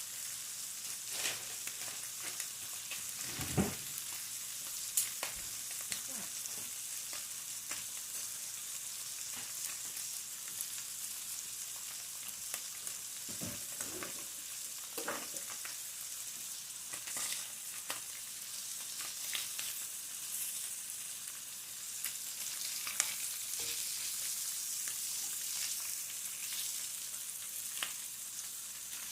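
Food sizzling as it fries, a steady hiss, with scattered sharp clicks and a few soft knocks.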